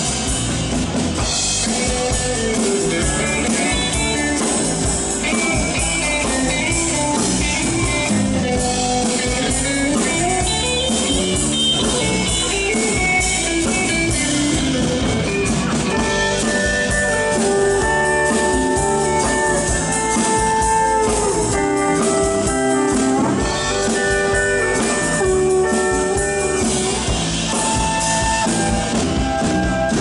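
Live country band playing an instrumental stretch on drum kit, guitars and bass, with a held melody line coming forward about halfway through.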